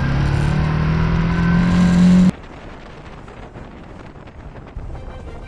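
Motorcycle engine accelerating, its pitch rising steadily, with wind rush on the microphone. It cuts off abruptly a little over two seconds in, leaving only a much quieter hiss.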